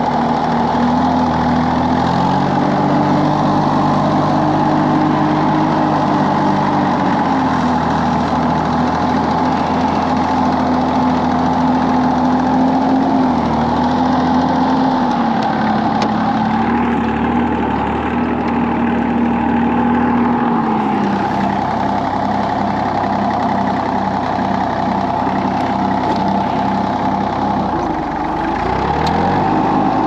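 Compact tractor engine running as the tractor drives, its speed rising and falling several times, with a steady higher whine over it.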